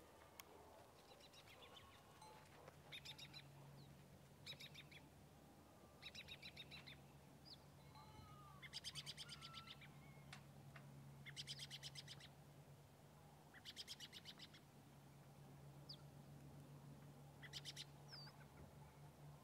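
Faint bird calls: short, rapid chattering trills, about seven of them spaced a second or two apart, over a low steady hum.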